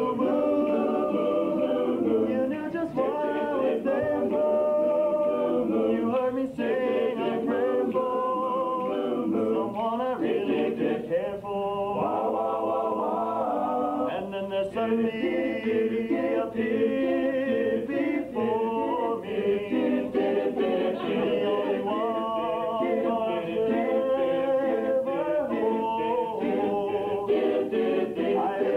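A vocal group singing 1950s-style music a cappella, several voices in harmony without instruments.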